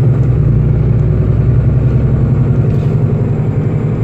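Steady low drone of a Solaris Urbino 12 city bus driving along, engine and running noise heard from inside the passenger cabin.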